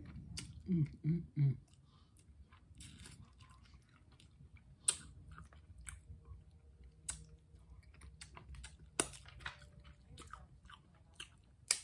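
Close-miked eating sounds: chewing and mouth smacking, with sharp clicks and cracks as snow crab legs are picked apart, and a few short hums about a second in.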